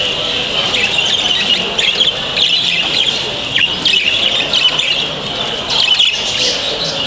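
Many exhibition budgerigars chattering together: a dense, unbroken warbling with frequent short chirps and squawks.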